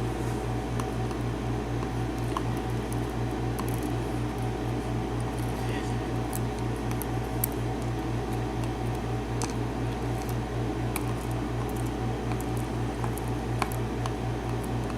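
A steady low hum with an even, quick pulse, like a small fan motor, with a few faint clicks of small metal lock pins and parts being handled on a work surface.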